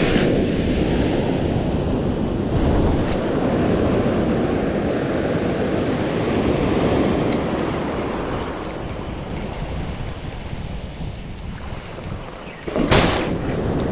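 Wind buffeting the microphone over the steady wash of the sea, with a sudden loud burst of noise about a second before the end.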